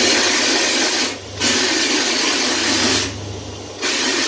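Homebuilt vapour blaster's nozzle spraying a jet of wet abrasive slurry onto zinc-plated steel, a loud hiss in three bursts with brief breaks about a second in and near the end, over a steady low hum. A quick, light pass to brighten the fresh zinc plating without stripping it.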